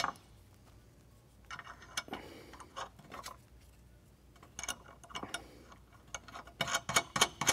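Light metallic clicks and rattles of a nut being spun by hand onto a half-inch bolt, fastening a metal brace to a running-board bracket. The clicks come in several short runs with pauses between them.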